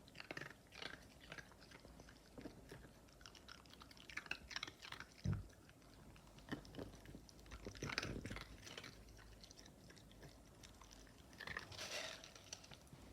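A bichon frisé crunching and chewing ice, with irregular sharp cracks of the ice between its teeth and a dull knock about five seconds in.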